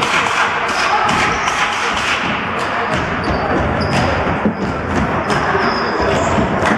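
Echoing sports-hall noise of a basketball game: a basketball bouncing and thudding on the floor amid many knocks, with short sneaker squeaks from about halfway in and voices in the background.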